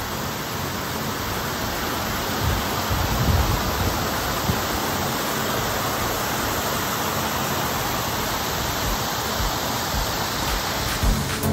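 Steady rushing of falling water, an even hiss with some low rumble.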